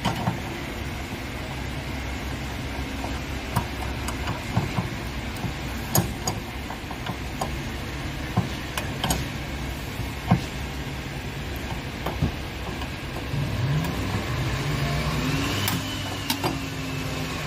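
Irregular sharp metallic clicks and taps of an adjustable wrench working a brass pipe fitting on an espresso machine's water line, over a steady low engine-like hum. Near the end the hum swells and rises and falls in pitch.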